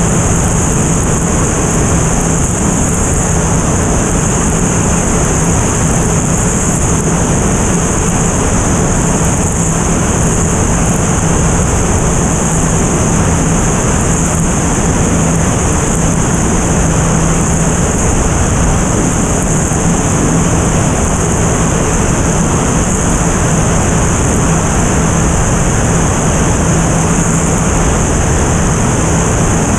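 Steady rush of wind over a camera mounted outside a single-engine turboprop airplane in cruise, with the propeller's constant low drone underneath.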